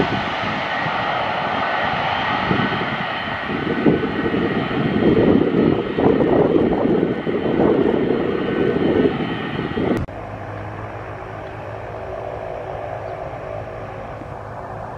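Twin-engine turboprop airliner's engines and propellers running loud as it lands and rolls out down the runway, swelling for several seconds, with gusty rumble on the microphone. About two-thirds of the way through it cuts abruptly to a quieter, steady distant aircraft engine hum.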